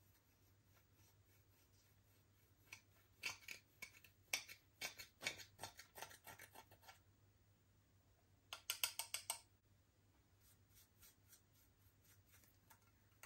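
Sharp clicks or snips in a small room: a run of about a dozen spread over some four seconds, then a quick cluster of several about two-thirds of the way in.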